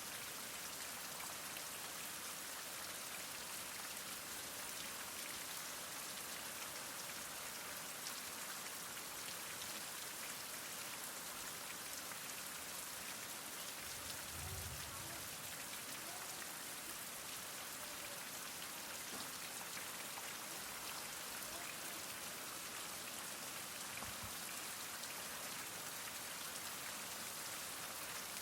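Heavy rain falling steadily, an even hiss of drops with a brief low rumble about halfway through.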